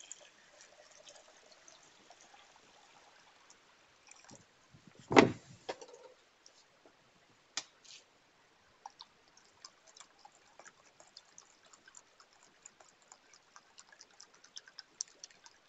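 Water poured from a plastic bottle into a cut-open PET bottle of cattle manure, trickling and splashing faintly, with many small scattered ticks in the second half as the mix fills and bubbles. A single loud thump about five seconds in.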